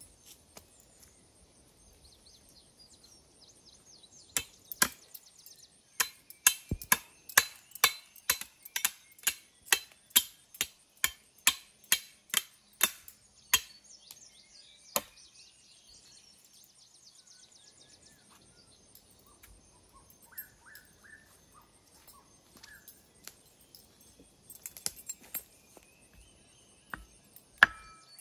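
Wood being chopped: a run of about twenty sharp strikes, roughly two and a half a second, that stops about halfway through. One more strike follows a moment later, and a few more come near the end.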